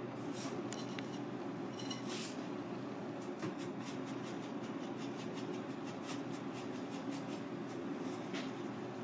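Steady kitchen background hum with scattered light clicks and scrapes of handling: a few in the first two seconds, then a denser run of small ticks through the middle.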